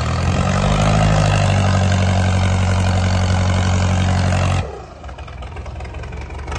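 The 4x4 Isuzu NPR wrecker's engine, revved hard and held at a steady high pitch for about four and a half seconds while pulling on the recovery rope, then cut back abruptly to a low run.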